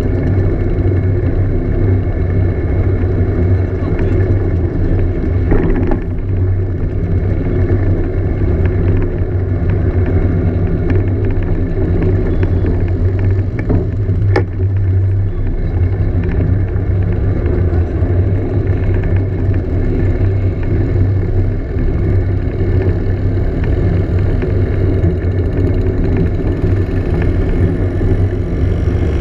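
Scooter engine running steadily at cruising speed, heard up close from the scooter itself, with a strong low hum and no marked revving.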